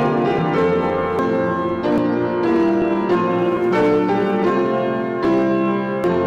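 Piano playing sustained chords, with new chords struck about every second.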